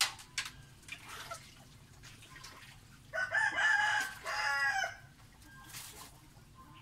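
A drawn-out call from a domestic fowl about three seconds in, in two parts and lasting about two seconds, preceded by a few light clicks and rustles.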